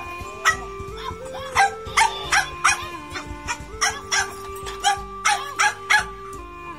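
A dog barking over and over in short, sharp yaps, about a dozen of them at roughly two a second. Background music with held notes plays underneath.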